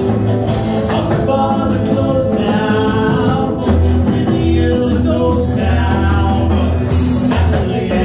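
Rockabilly trio playing live: upright bass, electric guitar and drums, with sung lead vocals over a steady beat.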